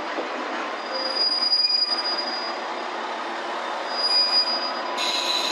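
KiHa 47 diesel railcar rolling past along the platform with steady running noise. Thin high-pitched squeals come about a second in and again about four seconds in, and a louder, steadier squeal starts near the end.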